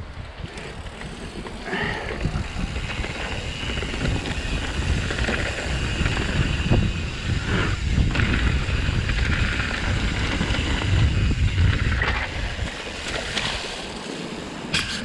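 Mountain bike riding down a dirt trail: knobbly tyres rumbling over dirt and rocks and the bike rattling, with wind buffeting the camera microphone.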